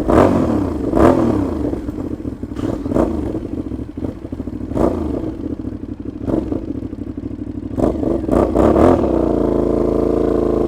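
Aprilia Shiver 750 V-twin with a loud exhaust leak between the silencer and the catalytic converter, its revs rising and falling with repeated sharp crackles from the exhaust. About nine seconds in, it settles into a steadier note.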